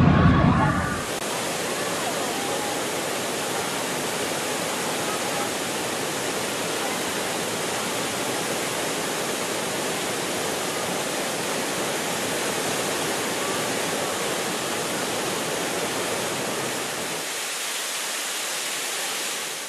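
About a second of outdoor crowd noise cuts off, giving way to the steady rush of a waterfall. Near the end the deepest part of the rush drops away and the sound fades out.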